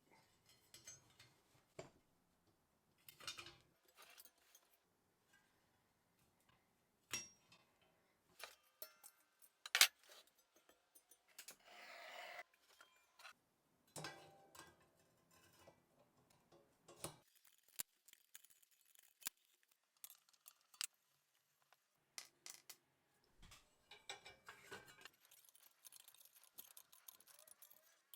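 Small metal parts and tools handled on a workbench: scattered clicks, clinks and light knocks, with a short scrape about twelve seconds in and a quicker run of small clicks near the end.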